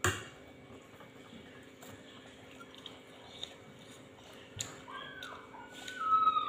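Slurping from a small bowl of broth, a few short, whistly, gliding slurps in the last second and a half, the loudest of them near the end. A sharp click at the very start, with faint eating sounds between.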